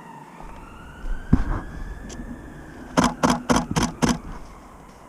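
A siren wailing, its pitch slowly rising and falling. About three seconds in comes a quick run of five sharp clicks, a little over three a second.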